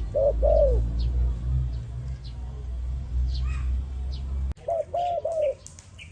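A dove cooing: a short note then a longer arched coo just after the start, and three quick coos soon after a sudden cut about four and a half seconds in. Faint high chirps of small birds sound throughout, over a steady low rumble that stops at the cut.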